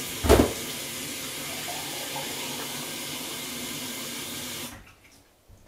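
Water running from a kitchen tap into a container: a steady hiss that stops sharply near the end, with one loud knock about a third of a second in.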